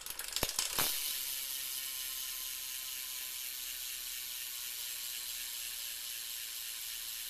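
Freewheel clicking of a BMX Poverty Spare rear cassette hub as the rear wheel is spun and left to coast: its pawls ratchet so fast the clicks run together into a steady buzz. A couple of sharp clicks sound in the first second as the wheel is set going.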